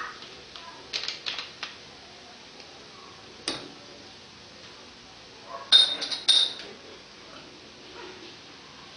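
Clinks and knocks of a glass bottle and metal cookware being handled: a few light taps about a second in, a single sharp click about halfway, and the loudest cluster of clinks about six seconds in.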